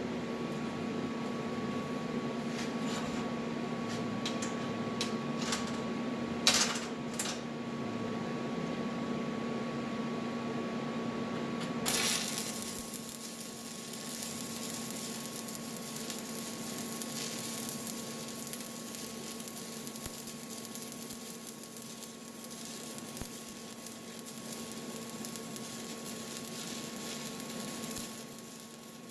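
Stick welding with a 7018 electrode: a steady crackling arc over a constant hum, with a few sharp clicks about six to seven seconds in and a brighter hiss from about twelve seconds on.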